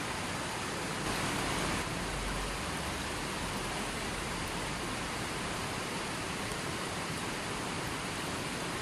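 A steady, even hiss of noise with no distinct splashes or other events, briefly a little louder about a second in.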